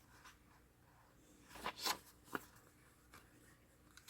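Paper pages of a printed manual rustling as they are handled and turned. There are two short rustles about two seconds in and a light tick just after; the rest is quiet.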